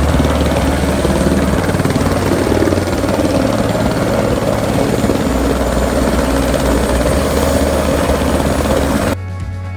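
Helicopter running on the ground, a steady rapid beat of its rotor over engine noise. It cuts off about nine seconds in and music takes over.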